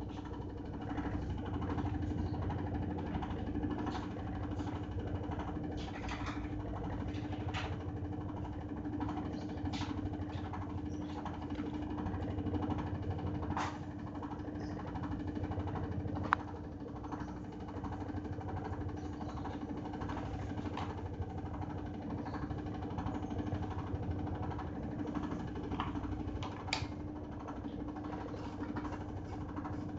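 Washing machine running with a steady hum and low rumble, with light clicks and ticks at irregular intervals and one sharper knock about halfway through.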